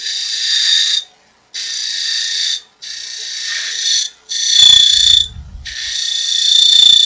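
Turning tool cutting the thin rim of a spinning aspen goblet on a wood lathe, making a high squealing tone in about five passes of a second or so each, with short gaps between cuts. The squealing is a sign of the wood getting thin at the rim.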